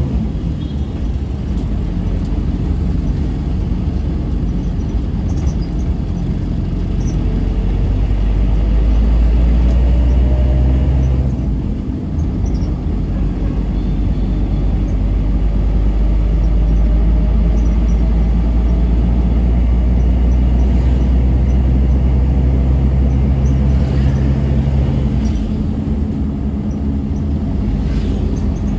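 Steady low engine and road rumble of a moving vehicle, with faint slowly rising and falling engine tones, briefly breaking off about twelve seconds in before carrying on.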